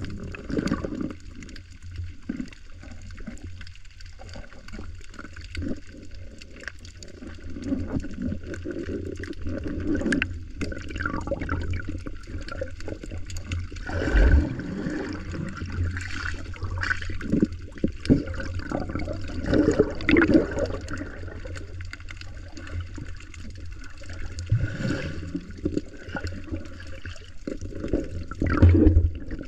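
Muffled water noise picked up by a camera held underwater: irregular gurgling and sloshing with bubbly surges, a few of them louder.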